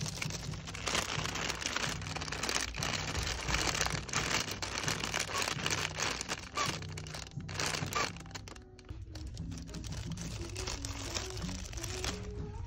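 Crinkling of the clear plastic bags around plush dog toys as they are handled and squeezed, in irregular rustles, over quiet background music.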